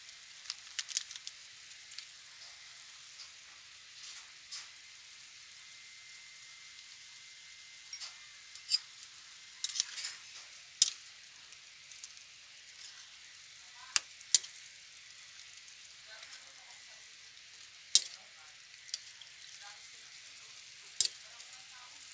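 Chicken and vegetable stew simmering in a ceramic-coated frying pan, a steady bubbling hiss. A metal ladle stirs it, knocking sharply against the pan several times in the second half.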